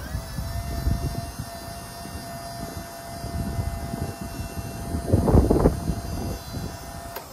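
Auto Crane 5005EH electric-hydraulic service crane slewing side to side: a steady whine from its pump drive over a low rumble, getting louder about five seconds in. The whine cuts off just before the end as the rotation stops.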